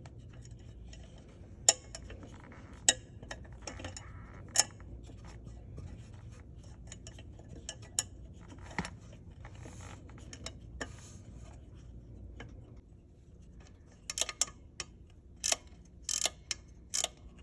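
Scattered sharp metallic clicks and clinks of hand tools and bolts being worked on a car engine, with a quicker run of clicks in the last few seconds. A faint low hum sits underneath and stops about two-thirds of the way through.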